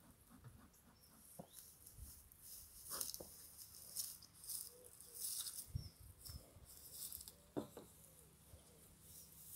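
Faint rustling and light knocks of someone working at a wooden beehive and moving through dry grass, with a few faint chirps.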